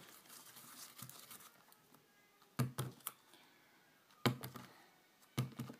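A ball of bouncy slime bounced on a desk three times, each landing a quick pair of soft taps, after a faint rustle as it is rolled between the hands.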